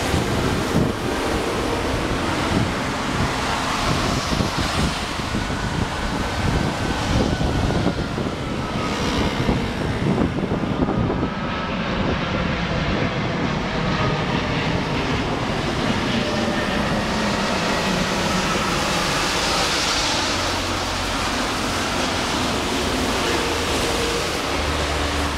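Qantas Airbus A380's four Rolls-Royce Trent 900 engines on final approach: a steady jet roar with faint whining tones that slide in pitch, the high hiss swelling about twenty seconds in as the aircraft comes closest. Wind buffets the microphone.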